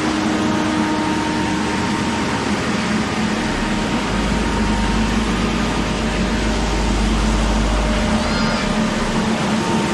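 Heavy construction machinery running steadily, with a deeper low rumble joining for a few seconds midway.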